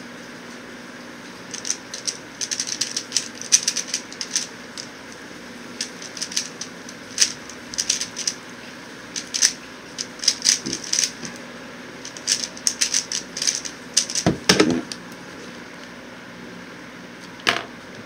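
QiYi X-Man Tornado V1 3x3 speedcube being turned fast: quick runs of plastic clicking and clacking with brief pauses, ending in a heavier thump as the solve finishes, then one more knock near the end. A steady electric-fan hum runs underneath.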